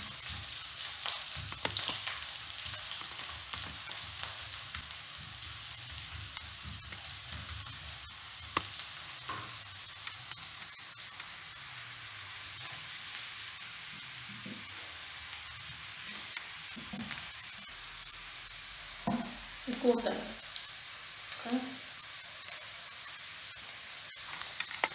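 Sliced onions sizzling steadily as they fry in oil in a nonstick pan, with a few clicks of a wooden spatula stirring them in the first seconds. A few brief louder knocks come about twenty seconds in.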